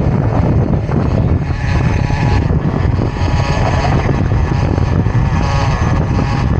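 Modified OS 15 CV-R two-stroke nitro glow engine of an RC car idling steadily with its engine warm, ready for an acceleration run.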